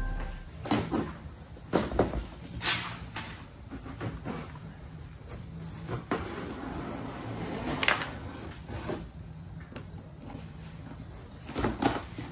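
Scattered knocks, thumps and handling noises, about a dozen spread unevenly, the loudest pair near the end, over a faint steady low hum.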